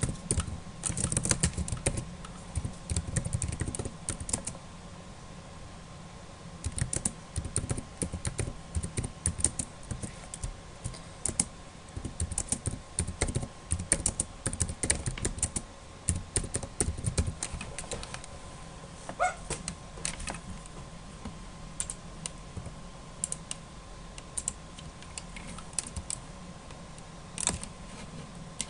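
Typing on a computer keyboard in quick runs of keystrokes, with a short pause about five seconds in; the keystrokes thin out into scattered single clicks over the last third. A faint steady hum lies underneath.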